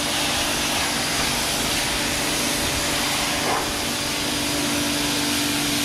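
Stanley electric pressure washer running with a steady motor hum while its zero-degree nozzle blasts a hissing jet of water against brick.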